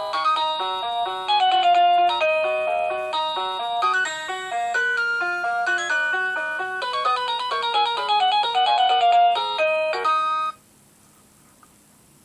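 Dick Smith Y8450 wireless door chime playing one of its built-in tunes: a quick electronic melody with several notes sounding at once. It cuts off suddenly about ten and a half seconds in.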